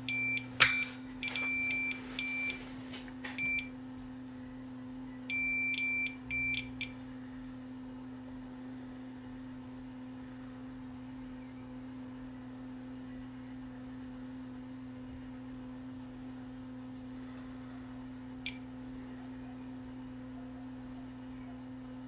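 Digital multimeter beeping in min-max mode: a run of short beeps in the first few seconds, then one longer beep of about a second and a half. A steady low hum runs underneath, and there is a single faint click later on.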